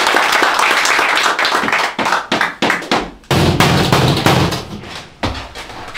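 A group of people clapping their hands in a small room, dense at first and thinning to a few separate claps after about two seconds. Louder knocks and thumps with a low rumble follow about halfway through.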